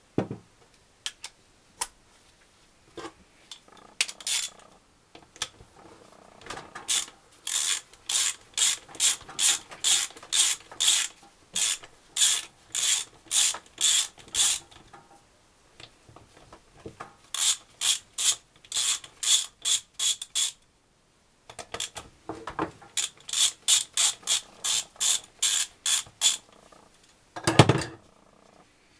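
A ratchet wrench being worked in quick strokes, clicking on each back-swing, about two to three strokes a second in several runs with short pauses. A single loud knock near the end.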